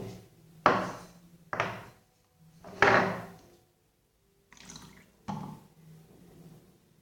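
Wet slime of cold silicone glue and water squeezed and kneaded by hand: several separate wet squelches, the loudest about three seconds in.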